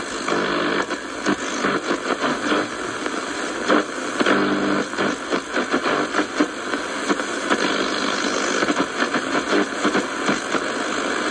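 Sony ICF-F12S portable radio's loudspeaker hissing with shortwave static as the tuning dial is turned, with short crackles and brief tones coming and going.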